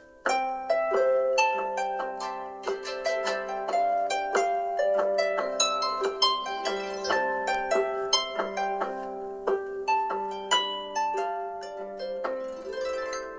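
Alarm tone ringing on a Samsung Galaxy Tab S7 FE tablet: a plucked, harp-like melody of quick notes. It breaks off and starts over just after the beginning, and a brief shimmer comes near the end.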